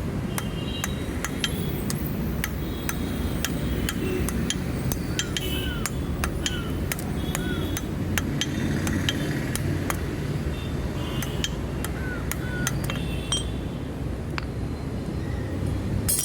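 Irregular hammer taps on steel with short metallic rings, over a steady low rumble.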